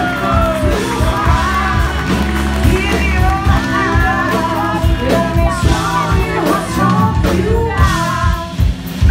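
Live blues-rock band playing: electric guitar, electric bass and drum kit, with a woman singing over it.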